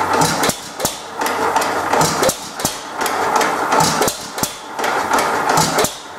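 1914 Economy Model D hit-and-miss gas engine running on its first start-up, with a regular beat of sharp knocks and clatter and the loudness pulsing about once a second.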